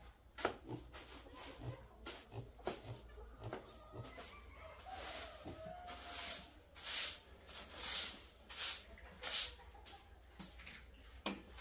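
Plastic-bristled broom sweeping a concrete floor: a run of short swishing strokes with light knocks, turning into louder, longer sweeps roughly every second in the second half.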